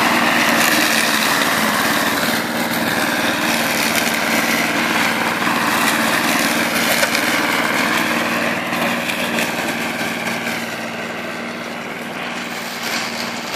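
Small engine of a radio-controlled rotary lawn mower running steadily as it cuts long grass. The drone grows gradually fainter over the second half as the mower drives away.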